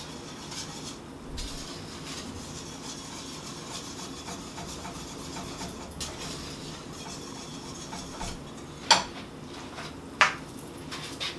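A spoon stirring thick grits in a pot, a steady scraping and rubbing against the pan, with two sharp clicks of the utensil on the pot near the end.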